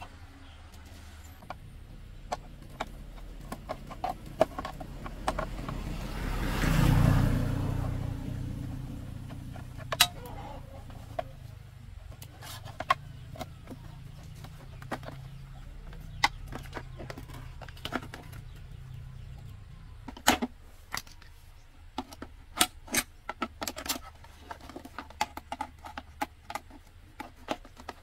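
Metal parts and hand tools clinking and clicking as they are handled, in scattered sharp taps that come thicker near the end, over a low steady hum. About seven seconds in, a broad rushing sound swells up and fades away over a few seconds.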